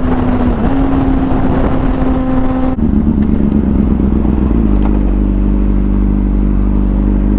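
Motorcycle engine running at a steady pitch under a low rush of wind noise. About three seconds in the sound changes abruptly, and shortly before five seconds in the engine note drops a step and holds steady again.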